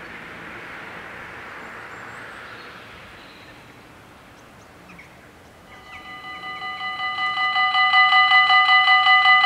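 Level crossing warning bells start ringing about halfway through, struck rapidly at about four strokes a second. They grow louder for a couple of seconds and then ring steadily. This is the crossing's warning that a train is approaching. Before the bells, there is only a faint rushing background noise that fades away.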